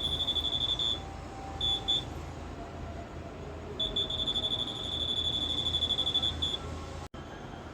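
Handheld metal detector's buzzer giving a high, rapidly pulsing beep in bursts: a run that stops about a second in, two short chirps, then a longer run of about two and a half seconds. It is signalling metal, here the presence of another metal detector.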